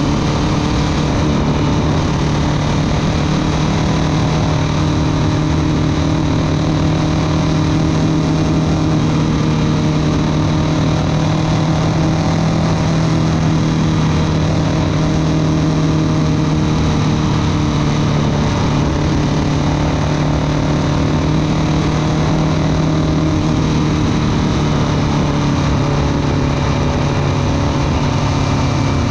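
Motorcycle engine running steadily while the bike is ridden at speed, with even wind and road noise over it.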